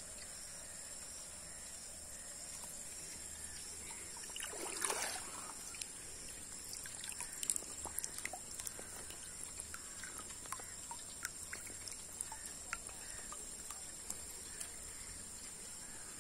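Water splashing and draining about five seconds in, then many small scattered ticks and drips: tilapia fingerlings flicking about in a wet perforated plastic basket. A steady high hiss runs underneath.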